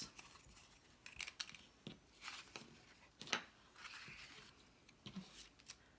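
Cardstock tabs being folded and creased by hand: faint, scattered paper rustles and small sharp clicks, the sharpest a little past three seconds in.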